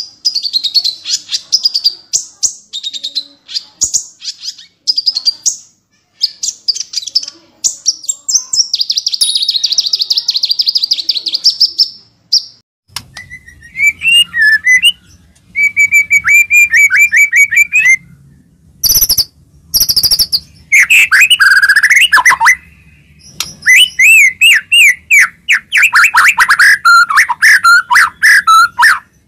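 White-rumped shama (murai batu) song played to provoke another shama into singing. The first half is fast, high-pitched chattering and trilling. From about halfway, loud, varied whistled phrases slide up and down in pitch, over a faint low hum.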